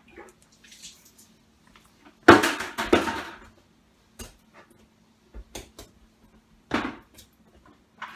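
Clattering and knocking of household objects, loudest for about a second a couple of seconds in, with another burst near the end and scattered light knocks, over a faint steady hum.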